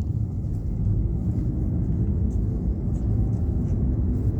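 Steady low rumble of a moving vehicle on the road.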